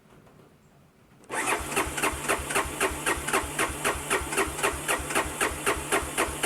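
Honda Big Red 250 three-wheeler's engine cranking over on the starter, an even chug of about four strokes a second, beginning about a second in and running about five seconds without catching. It is a failed cold start, tried without choke on an engine that has sat for a month.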